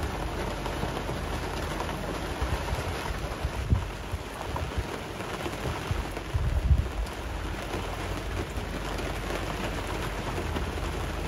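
Steady rain falling, a dense even patter, with a couple of short low thumps about four and seven seconds in.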